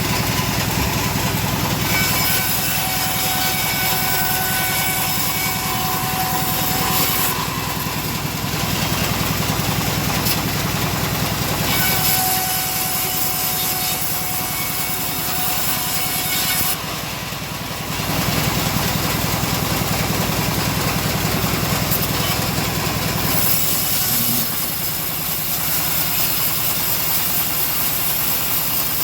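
Homemade engine-driven bandsaw mill running steadily while its blade saws through a teak log. The sawing noise eases and picks up again a few times.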